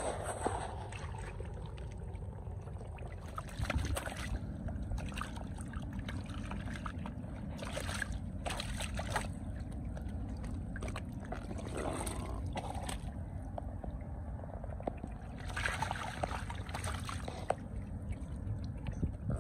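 Shallow muddy water splashing and sloshing in irregular bursts as catfish are grabbed by hand, over a steady low rumble.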